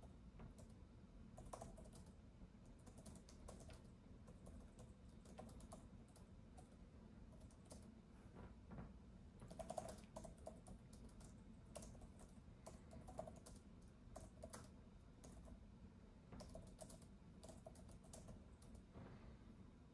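Faint typing on a keyboard: quick keystrokes in irregular runs with short pauses between them, over a low steady room hum.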